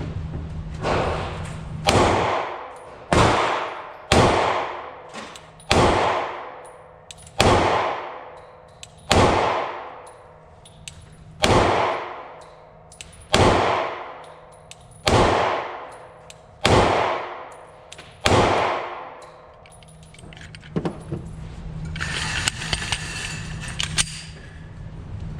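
Glock 29SF 10mm pistol fired slowly, about a dozen single shots one every second or two, each with a ringing echo that dies away.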